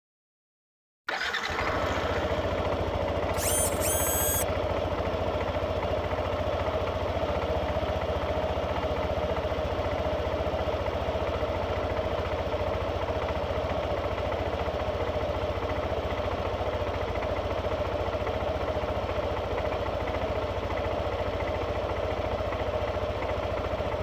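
Motorcycle engine starting abruptly about a second in, then idling steadily with an even low pulse. A brief high chirping sound comes about three to four seconds in.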